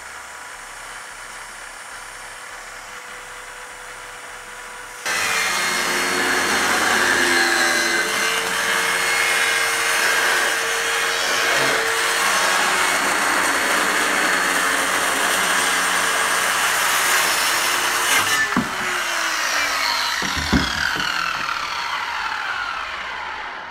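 Craftsman circular saw cutting a strip off the edge of a door. The motor runs steadily at first. About five seconds in it gets much louder as the blade bites into the door. Near the end, after a couple of knocks, the pitch falls as the blade spins down.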